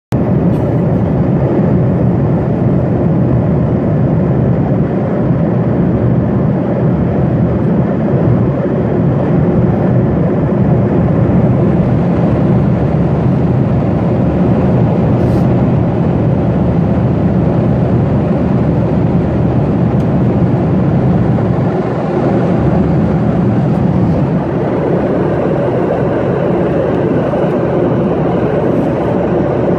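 Steady cabin noise of a Boeing 737-900 in flight, heard from a window seat by the wing: the even rush of air over the fuselage mixed with the drone of its CFM56 turbofan engines.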